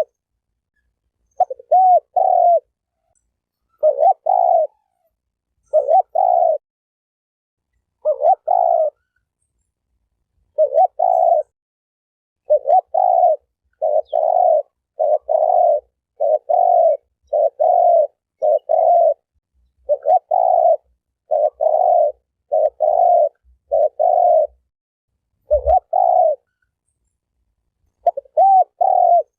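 Spotted dove cooing: a run of short coo phrases, each under a second with an arching rise-and-fall, spaced a second or two apart at first and then coming about once a second. A brief low thump near the end.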